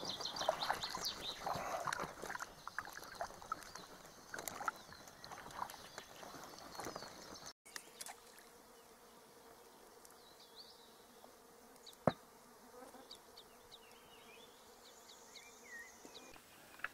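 Faint insect buzzing, with a few short high chirps. The sound drops quieter about halfway through, and a single sharp click comes about twelve seconds in.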